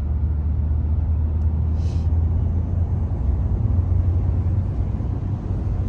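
Steady low rumble of engine and road noise inside a moving car's cabin, with a short hiss about two seconds in.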